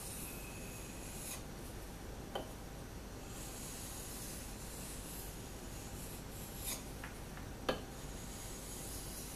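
Steel knife blade scraped across a wet 1000/4000 grit combination whetstone in sharpening strokes, a hissing rasp in stretches of a second or more. A few sharp clicks come between the passes, the loudest one near the end.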